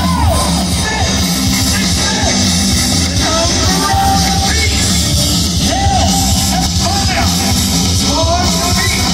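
Live heavy metal band playing loudly, heard from the crowd: distorted electric guitar, bass and drums, with a man singing into a microphone.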